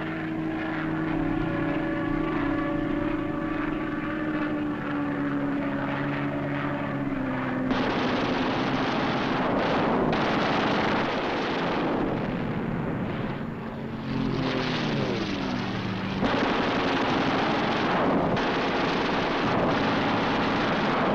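Propeller fighter aircraft engine drone, a steady hum with a slowly sagging pitch. About 8 seconds in it cuts abruptly to a loud, rushing noise. Partway through, an engine note falls steeply in pitch, as of a plane diving away, and a second abrupt cut about 16 seconds in brings an even louder noise.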